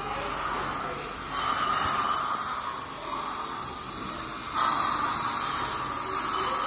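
Steady hiss of dental chairside equipment working in a child's mouth. It steps up in loudness about a second and a half in and again just before five seconds.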